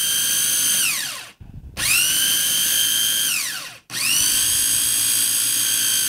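Electric chopper blender chopping fresh basil with olive oil, its motor whining in pulses. It winds down about a second in, starts up again, winds down around three and a half seconds, and starts once more about four seconds in.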